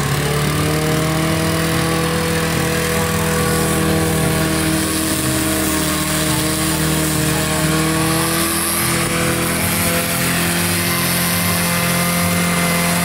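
Honda HRG465 walk-behind mower's four-stroke engine running steadily at a constant speed while its blade cuts through tall, thick grass.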